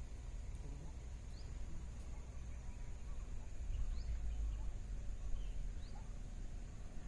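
Faint outdoor ambience: a bird gives short rising chirps a few times, over a steady high-pitched drone and a low rumble.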